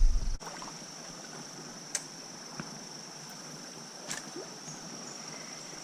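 Steady high-pitched trilling of insects, like a cricket chorus, with a few sharp clicks about two and four seconds in.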